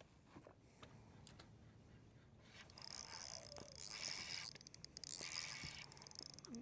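Spinning reel being cranked, a fast mechanical whirring of its gears, as a hooked fish is fought and reeled in; it starts about two and a half seconds in after a few faint clicks.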